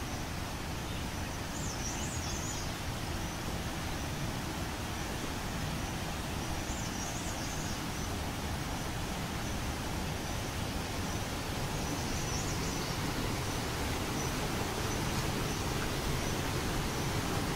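Steady rushing outdoor noise, with a small bird giving a short, wavering high chirp four times, a few seconds apart.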